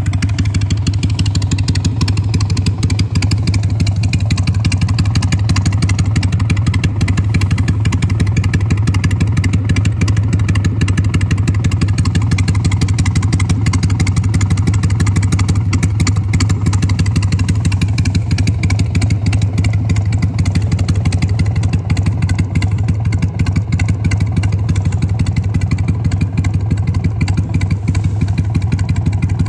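Idling of a 2002 Harley-Davidson Sportster XLH883 Hugger, a rigid-mounted, carbureted, air-cooled OHV V-twin. The idle holds steady with no revving.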